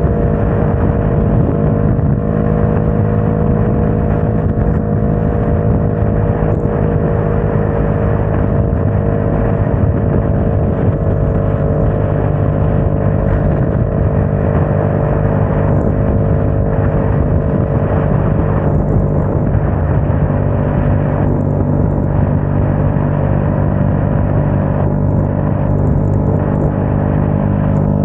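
Motorcycle engine running steadily at highway cruising speed on a wet road, under a heavy rush of wind noise. The engine note eases down slightly in the first half as the bike slows a little.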